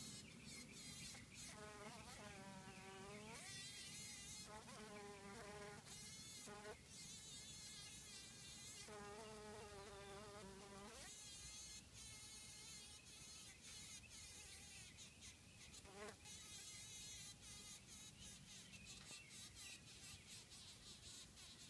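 Honey bee caught in a spider's web buzzing its wings in short, faint bursts of a second or two each, the distress buzz of a bee struggling against the spider's attack.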